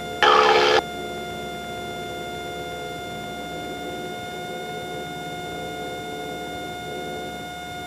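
Cessna 172 engine and propeller running steadily at full takeoff power during the climb-out, heard through the cockpit intercom as a steady drone with a steady high whine over it. A short, loud burst of noise comes about a quarter of a second in.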